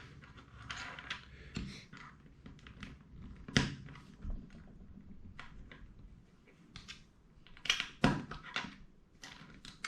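Plastic LEGO Technic parts clicking and rattling as they are handled and fitted together, in scattered small clicks with a sharper one about three and a half seconds in and a few more close together near eight seconds.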